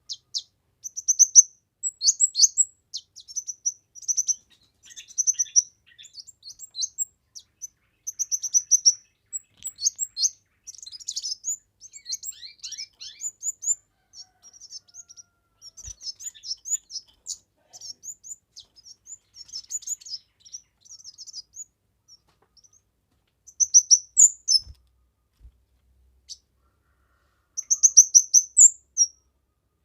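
A kemade songbird singing vigorously: quick, high-pitched chirps and trills in phrases of a second or two, broken by short pauses.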